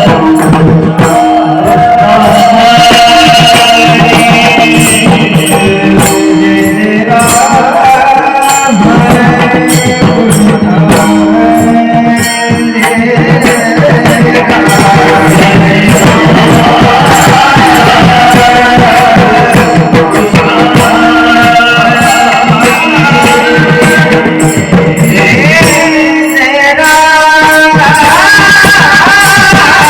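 Marathi devotional bhajan: a man singing over held instrumental tones, with drum and small hand-percussion accompaniment.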